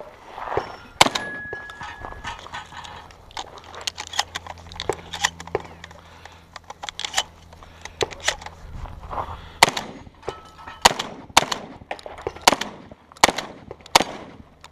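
Stoeger M3K 12-gauge inertia-driven semi-automatic shotgun firing a string of shots, with smaller clicks and clatter between them. Near the end comes a quick run of about five loud shots.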